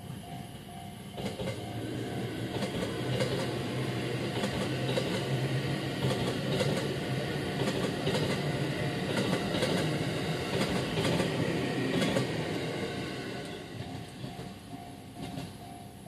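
JR West 207 series commuter train passing over a level crossing. It swells about a second in, its wheels clacking over the rail joints, and fades away after about fourteen seconds. The crossing's warning bell keeps ringing its pulsing clang under the train.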